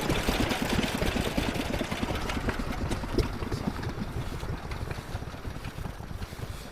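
Engine running at a steady, fast firing rate, slowly growing fainter.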